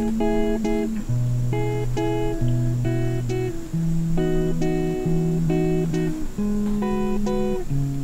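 Background music: chords struck in a steady rhythm over held bass notes that change every second or so.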